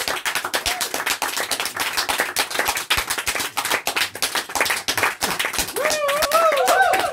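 A small audience clapping steadily, with a voice calling out over the applause near the end.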